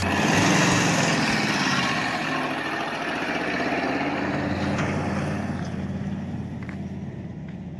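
Old flatbed truck pulling away across a dirt yard. The engine runs steadily and fades as the truck moves off, loudest at the start.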